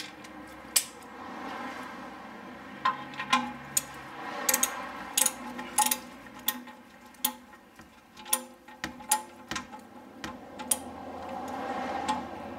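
Hand ratchet clicking in irregular runs as the oil drain plug is threaded back into the oil pan. The plug is stiff, so it is ratcheted part way, turned by hand, then ratcheted again.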